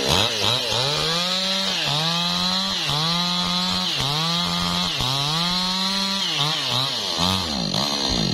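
New West 628 two-stroke chainsaw cutting through a teak log, its engine pitch rising and falling about once a second as the chain loads in the wood. The sound cuts off suddenly at the end.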